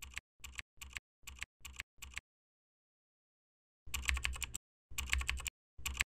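Computer keyboard keystrokes, a typing sound effect: about six single keystrokes at an even pace, a pause of almost two seconds, then three quick runs of keys as a word is typed out.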